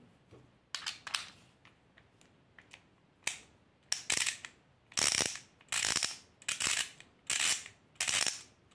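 Ratchet screwdriver's pawl mechanism clicking as the handle is swung back and forth. A few faint clicks come first; then, from about three seconds in, louder bursts of clicking follow, roughly one and a half a second. The sound is ringing, from the larger ratchet gears of this screwdriver.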